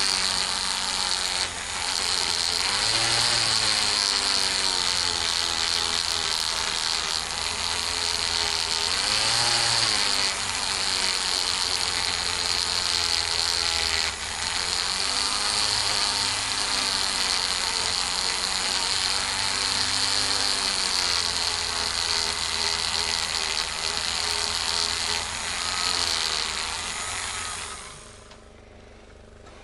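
Flexible-shaft rotary tool running a polishing wheel against a wooden knife handle: a steady high whine whose pitch wavers as it works. The motor is switched off and winds down near the end.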